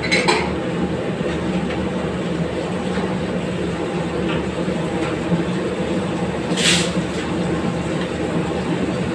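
A commercial gas stove burner runs with a steady rumbling roar under a pan of curry. Two brief scraping sounds come from a ladle stirring in the metal pan, one right at the start and one about two-thirds of the way through.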